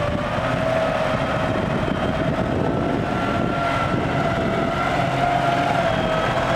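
CLAAS Talos 240 tractor's diesel engine running steadily under load as its front blade pushes soil, with a faint steady whine over the engine.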